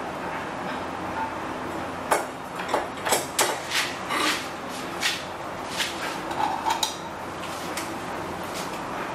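Metal tools and small parts clinking and knocking as they are handled and set down, an irregular run of sharp taps and clicks starting about two seconds in and stopping near the end, over a steady background hiss.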